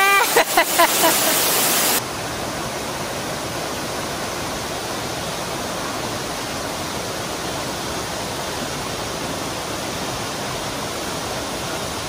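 Steady rush of a large waterfall pouring into a rocky pool. About two seconds in the sound drops to a slightly quieter, even rush.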